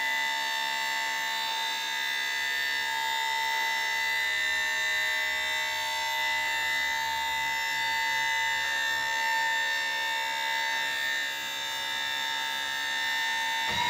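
Hydraulic pump of a Monroe dump body's hoist running with a steady high whine as the bed tilts up. The whine stops right at the end as the bed reaches its maximum height.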